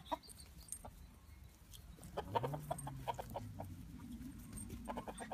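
Chickens clucking in runs of short, quick clucks, busiest about two seconds in and again near the end. Under the first run, a low hum rises and falls for about a second and a half.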